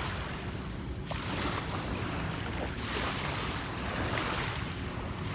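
Small waves washing against the shore, swelling and easing about once a second, with wind rumbling on the microphone.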